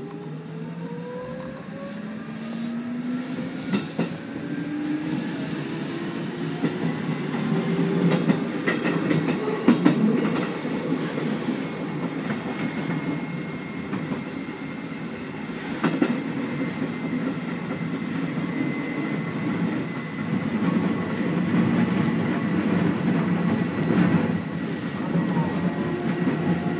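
Keikyu electric train pulling away and gathering speed, heard from inside the front car. The traction motor whine rises in pitch over the first several seconds, then holds as a steady high whine over running wheel rumble and occasional rail-joint clacks.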